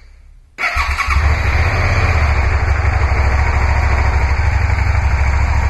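Suzuki SV650S V-twin engine starting about half a second in and settling into a steady idle, run briefly after an oil change to circulate the fresh oil through the engine and filter.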